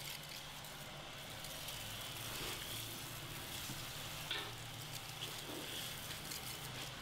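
Water spraying from a handheld shower head onto lathered hair and splashing into a shampoo basin, a steady hiss.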